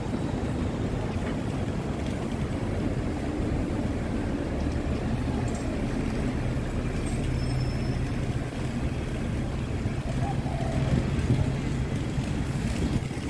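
Steady low rumble and hum of a vehicle running, with no sharp events.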